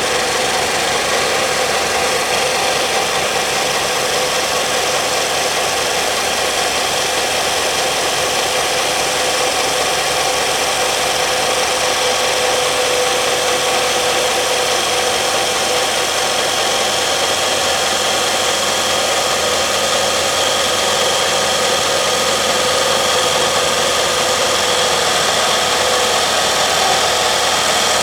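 Belt sander running steadily: a constant rushing noise with a few steady whining tones, growing slightly louder in the second half.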